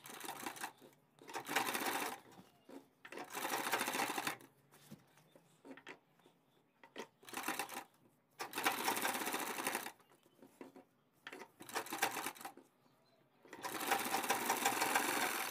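Black domestic sewing machine stitching in several short runs, stopping and starting with brief pauses; the last run, near the end, is the longest.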